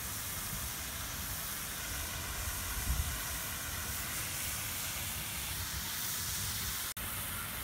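Steady hiss of a pond fountain's water jet spraying and splashing back onto the water, with wind rumbling on the microphone, strongest about three seconds in. The sound drops out for an instant near the end.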